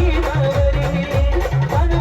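Band music from a Maharashtrian street band: a held melody line over a heavy bass drum beat, about two beats a second.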